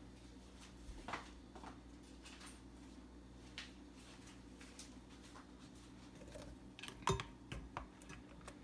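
Faint scrapes and taps of a spatula mixing and mashing banana, butter and sugar in a bowl, with a sharper knock about seven seconds in, over a low steady hum.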